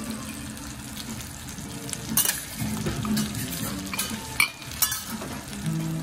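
Tilefish pieces sizzling in oil on a teppanyaki steel griddle, scale side down, with several sharp metal clicks of a spatula and carving fork against the griddle in the second half.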